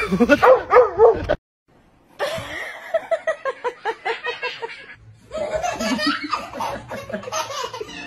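Dog barking mixed with laughter and excited voices. The sound drops out for under a second at a cut about a second and a half in, and a quick rhythmic run of short sounds follows.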